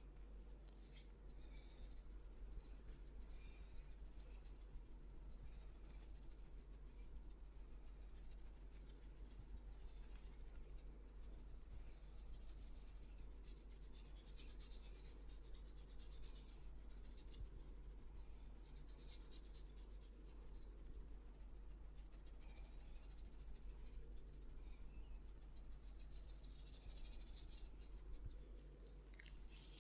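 Hands rubbing and massaging over skin and hair, a soft, steady, hissy friction with fine crackles running throughout.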